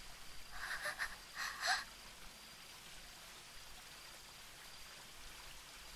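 A woman's two faint, breathy gasps of shock in the first two seconds, then near silence.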